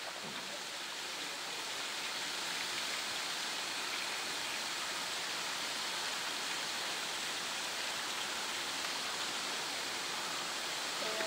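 Steady, even rushing noise, like running water or wind, building slightly over the first couple of seconds and then holding level.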